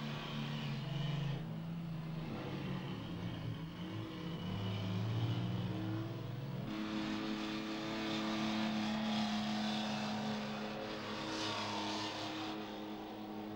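Heavy truck engine running steadily, its pitch shifting a few times as the engine speed changes.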